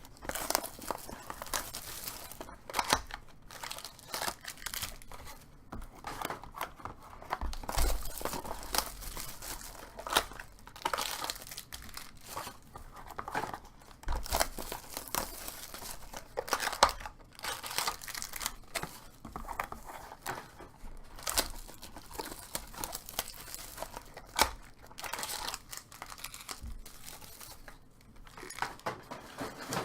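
Packaging of trading-card boxes and packs being torn open and crinkled by hand: irregular rustling, tearing and crackling with a few soft thumps.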